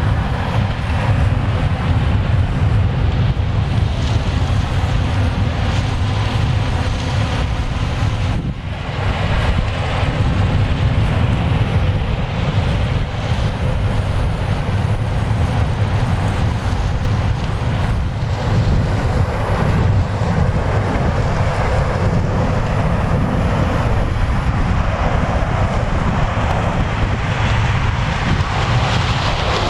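Heavy harvest machinery running steadily in a corn harvest, a low engine drone with wind noise on the microphone; the sound dips briefly about eight seconds in.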